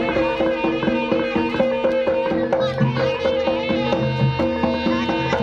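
East Javanese jaranan music: a reedy slompret melody with bending notes over kendang drum strokes and gamelan.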